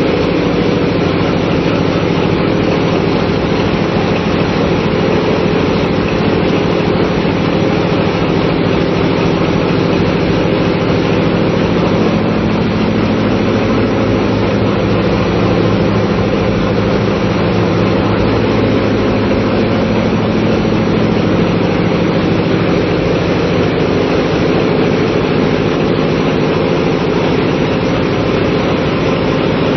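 Loud, steady drone of running marine diesel machinery in a small oil tanker's engine room: a low hum of several steady tones under a wide wash of mechanical noise.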